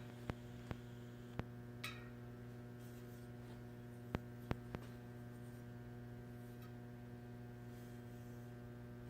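Steady low electrical mains hum, with a few sharp isolated clicks in the first half.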